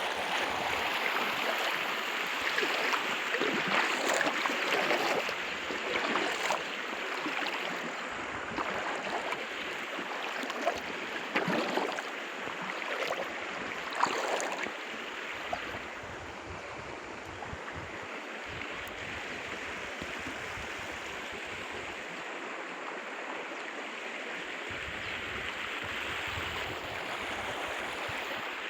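Running water, like a stream flowing, with a few sharper splashes or knocks in the first half, then a steadier flow.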